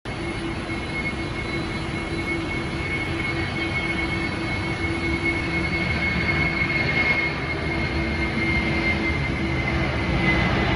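Jet airliner engines on the runway: a steady high whine over a low rumble, slowly growing louder.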